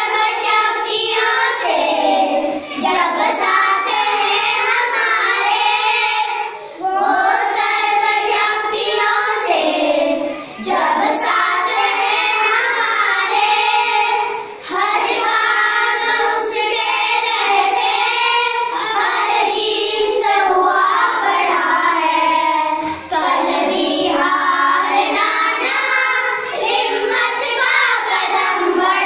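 A group of schoolchildren singing a song together, unaccompanied, in phrases broken by short pauses for breath.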